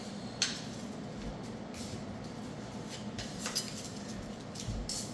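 A few light clicks and knocks, about four spread through, over a steady low hum.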